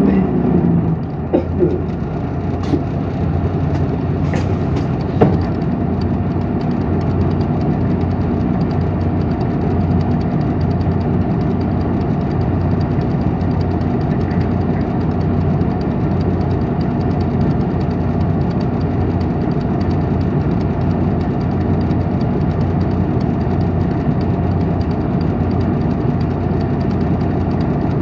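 Isuzu Erga city bus heard from the rearmost seat over its inline-six diesel: a falling whine as the bus slows to a stop in the first second, then the engine idling steadily. A few clicks and knocks come in the first five seconds.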